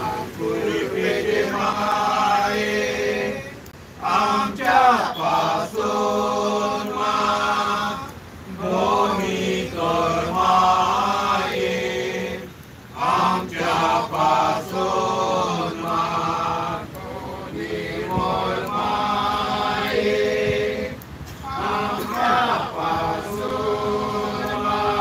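A small group of mostly men's voices singing a devotional prayer chant together, in phrases of about four seconds with short breaks between them.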